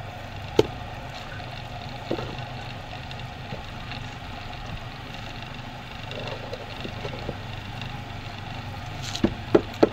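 Belt-driven electric potter's wheel spinning with a steady low motor hum as clay is thrown on it, with a few sharp clicks about half a second in and several near the end.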